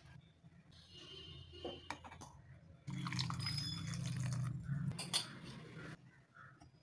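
Water poured in a steady stream into a steel mixer-grinder jar of grated coconut, running about three seconds and stopping abruptly, after a few faint clicks.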